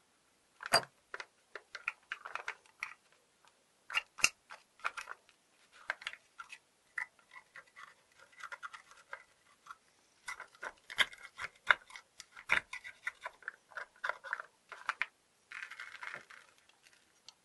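Thin metal pick scraping and picking caked dirt and rust out of an old gate mortise lock's steel case, with irregular sharp clicks of metal on metal and gritty scratching.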